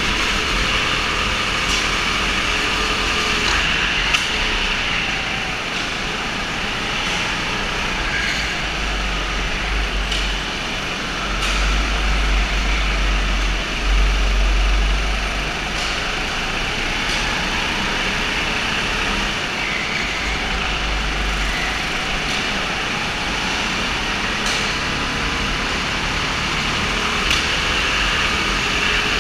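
Go-kart engines running in a race: a steady mechanical din with faint wavering engine whines. A deeper rumble swells for a few seconds around the middle.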